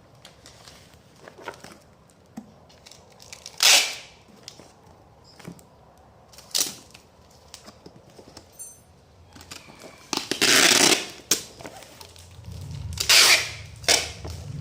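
Telolet horn sound module playing gunshot-like sound effects through its speaker: four loud sharp bursts a few seconds apart, the third stretched out to about a second, with fainter clicks between.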